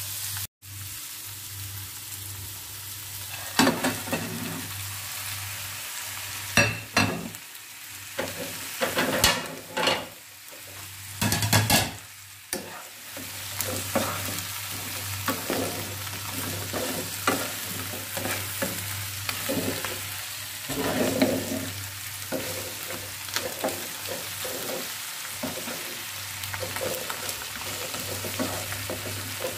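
Oil sizzling in a frying pan as onions, tomatoes, and then raw blue crabs and shrimp fry and are stirred. A run of louder knocks and clatters against the pan comes in the first half.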